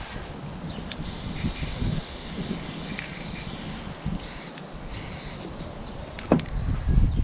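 Aerosol spray paint can spraying: one long hiss of about three seconds, then several shorter bursts, over a low wind rumble on the microphone. A sharp knock comes near the end.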